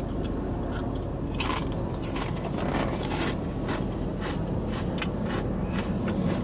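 Crunchy chili-pepper-and-lime potato crisps being chewed: a string of short, sharp crunches over a steady low background rumble.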